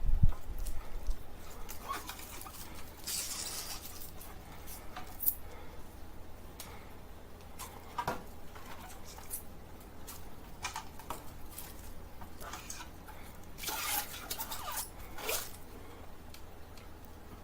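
Scattered light clicks, taps and brief rustles of things being handled, with a steady low hum underneath.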